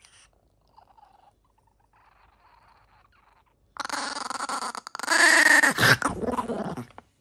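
Chihuahua puppy growling at a hand reaching for the food tray it is guarding. The rough growl starts about four seconds in and is loudest near the middle of the last three seconds.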